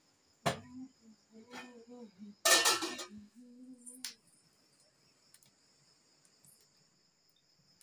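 Metal utensils clattering, loudest in one sharp clatter about two and a half seconds in. From about four seconds on, a steady high chirring of crickets, with small crackles from the firewood burning in the clay stove.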